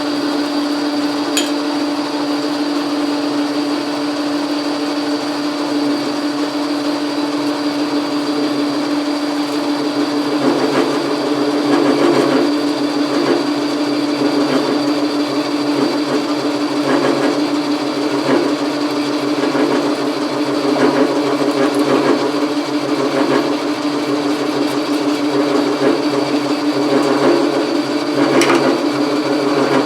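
Logan metal lathe running under power feed, its motor and drive giving a steady hum, with uneven swells of cutting noise from the tool in the work.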